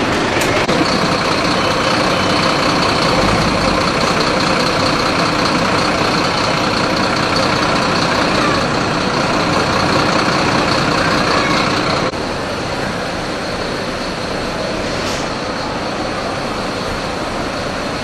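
Fire trucks' engines running at idle: a steady, dense engine noise with a thin high whine over it. About two thirds of the way through it drops abruptly to a quieter steady hum.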